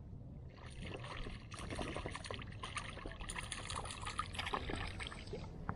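A hooked roach thrashing at the surface, a dense run of small splashes and water crackle that starts about half a second in and dies away just before the end.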